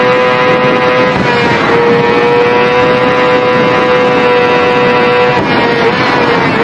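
Motorbike engine running at high, nearly steady revs, its pitch dipping briefly about a second in and again past five seconds before holding high again.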